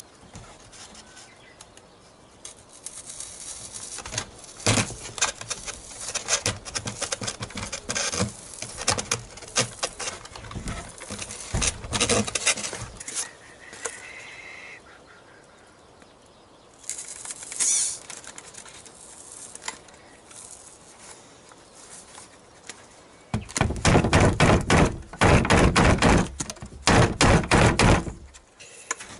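Handling noise from foam model-airplane parts: irregular clicks, taps and rustles as styrofoam pieces and bamboo skewers are fitted together, then a long run of loud rubbing and scraping of foam on foam in the last five seconds.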